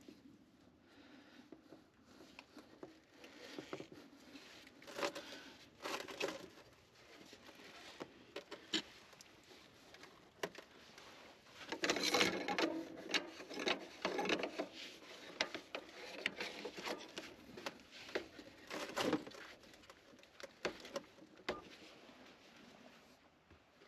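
Irregular clicks, knocks and rustling from hands working with tools and parts, with a busier stretch of clattering about halfway through.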